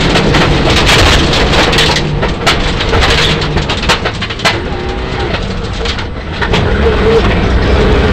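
Mitsubishi Lancer Evolution IX rally car's turbocharged four-cylinder engine heard from inside the cabin, with gravel rushing under the car. The engine eases off for a few seconds in the middle, with a few sharp knocks, then the car comes back on the throttle near the end.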